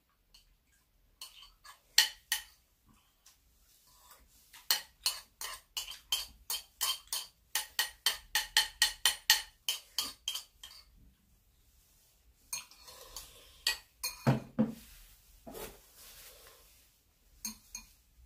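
Metal spoon clinking and scraping against a ceramic bowl while scooping porridge from a nearly empty bowl. There is a quick run of sharp clinks, about three a second, through the middle, then a few scattered knocks.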